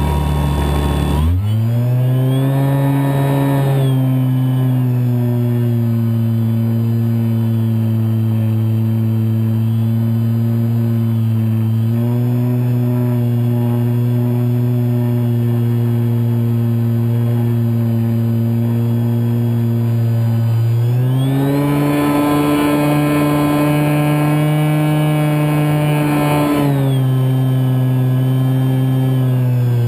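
Scorpion 4020-10 brushless electric motor spinning an 11x10E APC propeller on a Kyosho Spitfire 50 EP RC plane, heard from inside its cockpit: a steady droning whine. Its pitch rises about a second in, steps up slightly midway, then climbs higher and harsher for about five seconds as the throttle is opened, before dropping back near the end.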